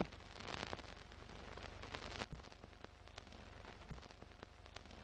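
Faint old-film crackle under a film countdown leader: a low hiss with scattered clicks and pops.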